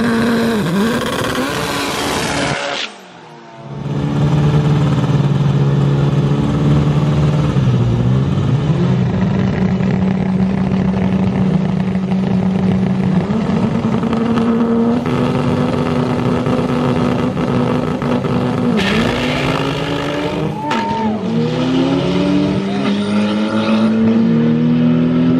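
Turbocharged Honda Civic drag car engine held at steady high revs on the starting line, the pitch stepping up and down. About three quarters of the way in it launches and accelerates away, the pitch rising in sweeps broken by gear shifts.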